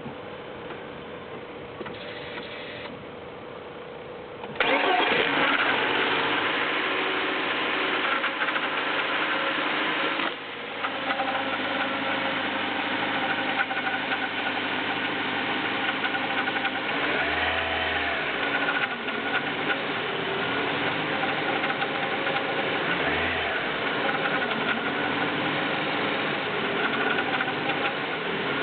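BMW E36 318is's M44B19 four-cylinder engine started from cold: it catches about four and a half seconds in, runs fast, then settles to idle about ten seconds in. The idle hunts up and down, around 1000 to 1500 rpm, and a metallic noise runs under it that the owner cannot place.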